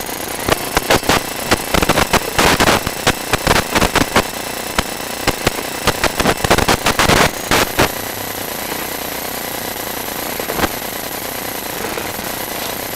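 Sewer inspection camera's push cable and head being worked up a cast-iron pipe: rapid, irregular clicking and knocking that stops about eight seconds in, leaving a steady hiss with a faint high whine.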